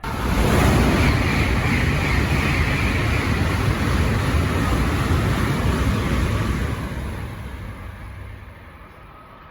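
A Tokaido Shinkansen train passing through the station at speed without stopping: a loud rushing roar with a deep rumble and a hiss. It starts suddenly and fades away over the last few seconds.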